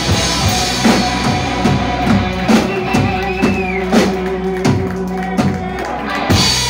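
Live rock band with electric guitars and drum kit: a sustained chord rings under scattered drum hits and cymbal crashes, a closing flourish of a song, with a last strike just before the end.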